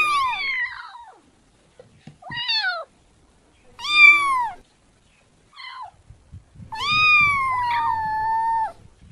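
Kitten meowing: about five high meows, each falling in pitch, one of them faint, and the last one long and held for about two seconds near the end.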